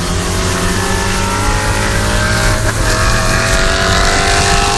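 Car engine at full throttle in a street race, its pitch climbing steadily, with a brief break about two and a half seconds in as it shifts up, then climbing again.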